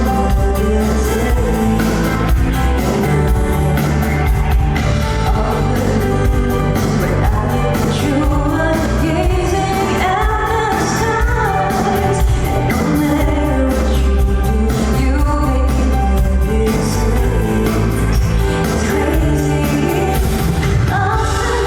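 Live pop song with a woman singing lead over an amplified band track with a steady bass, played through a concert hall's sound system.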